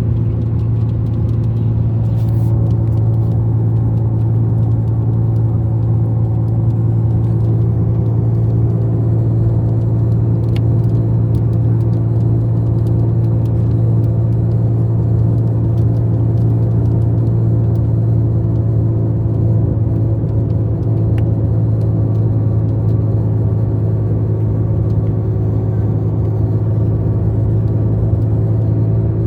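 A loud, steady low hum with several higher steady tones above it, unchanging throughout.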